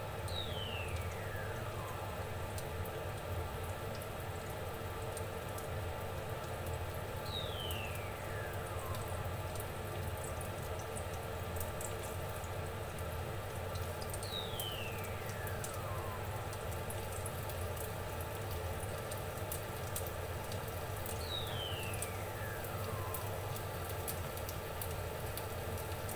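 Garlic frying gently in a little oil in a frying pan: a steady soft sizzle with many tiny pops, over a low steady hum. A faint whistle falls in pitch four times, about every seven seconds.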